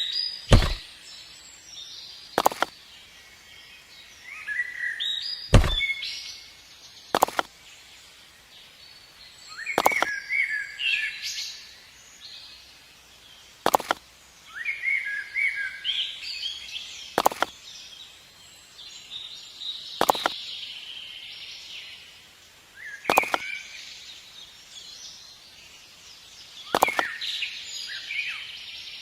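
Birds chirping in short bursts, with sharp single knocks every two to three seconds.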